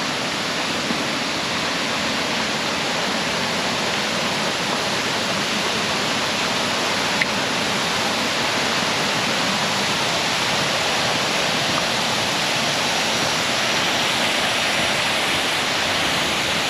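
Water pouring over a small river dam: a steady, even rush of falling water.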